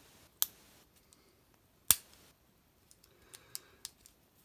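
Matech folding rear sight for the M16A4 being worked by hand: sharp metal clicks as its parts snap into their detents and lock. A louder click comes about two seconds in, followed by a few light clicks near the end.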